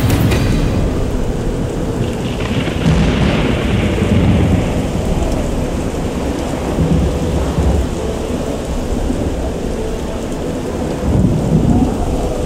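Loud, steady low rumble under a haze of noise, swelling about two seconds in and again near the end.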